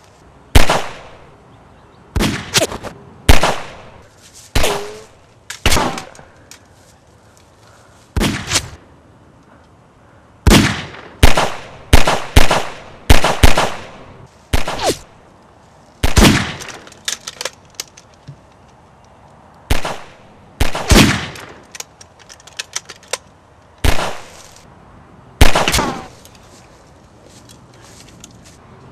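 Gunshot sound effects: some two dozen sharp shots with short echoing tails, fired singly and in quick runs of two to four at irregular intervals. A couple end in a short falling tone.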